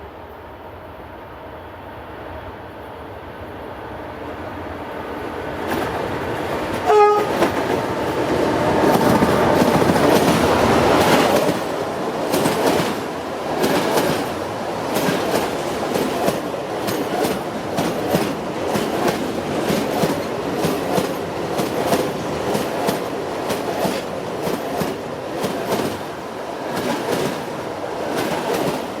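A train drawing closer and growing louder, with one short horn toot about seven seconds in, then rolling past with a steady run of wheels clacking over the rail joints.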